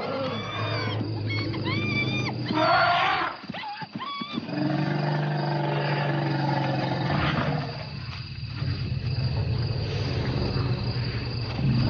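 African elephants trumpeting in several short, high, arching blasts during the first few seconds, followed by a long, low pitched call from about four seconds in, then fainter low calls.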